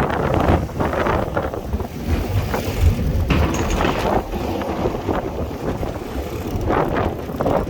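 Wind buffeting the microphone over sea waves, a loud low rumble with surging noise that rises and falls every second or two.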